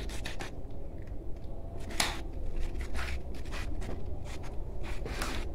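Small clicks, smacks and scrapes of a litter of kittens eating from plates, over a low steady hum. The sharpest click comes about two seconds in.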